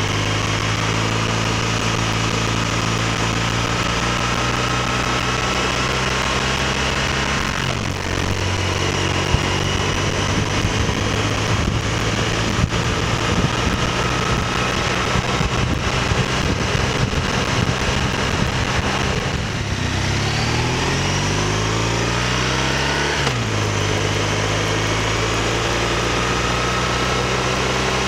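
BMW R1200RT's boxer twin engine pulling the motorcycle up through the gears, its pitch rising under throttle and dropping at each upshift, with a rougher, noisier stretch in the middle.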